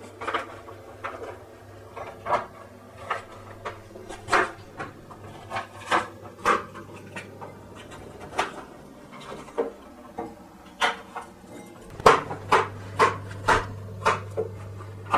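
Kitchen knives cutting bell pepper and zucchini on plastic cutting boards: irregular knocks of the blades striking the boards, coming quicker and louder in the last few seconds. A steady low hum runs underneath.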